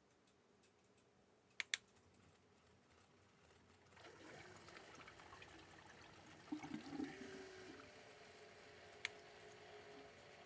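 Faint liquid pouring and trickling as coolant is filled into a custom water-cooling loop, with a few small plastic clicks.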